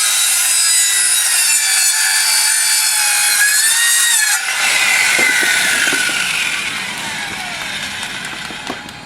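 Electric circular saw cutting through wood with a high whine. About four and a half seconds in the cut ends and the whine falls in pitch and fades as the blade spins down.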